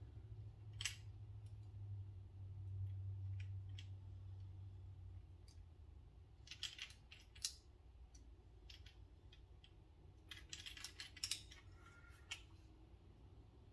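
Scattered small clicks and taps of a Benchmade Bugout folding knife's parts and a small tool being handled during reassembly. The clicks come singly and in two brief clusters, about six and ten seconds in, over a low steady hum.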